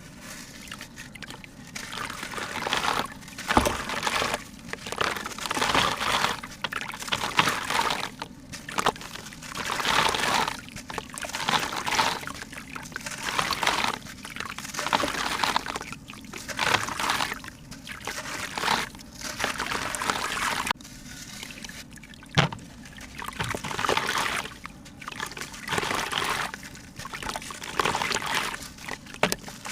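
Liquid pouring and splashing in repeated surges, about one every two seconds.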